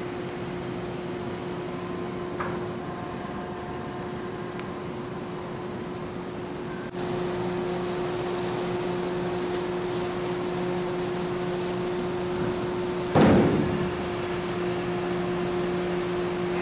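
Steady low hum of a large car ferry's engines and machinery as it moors, a little louder from about halfway through. One short, loud rush of noise comes about thirteen seconds in.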